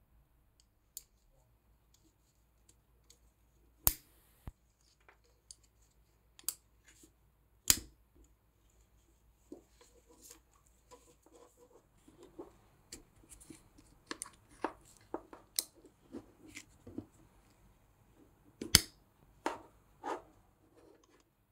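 Peak Design Slide Lite camera strap being fitted by hand: scattered sharp clicks of its connectors and anchor links on the camera, with softer scrapes and rustles of the nylon webbing. Three clicks stand out, the last and loudest near the end.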